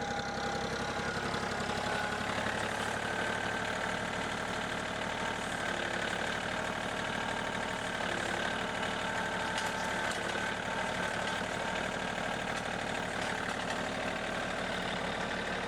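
Engine running steadily at a constant speed and pitch.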